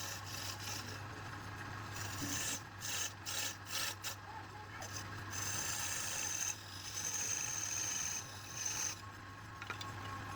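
A turning tool scraping and cutting wood spinning on a lathe, in uneven rasping passes with short gaps between them, over a steady low hum. A thin high whine sounds twice in the second half.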